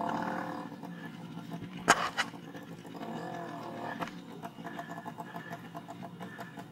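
Small two-stroke scooter engines running at low trail speed, their revs rising and falling. Sharp knocks come about two seconds in and again near four seconds as the scooter jolts over the rough dirt track.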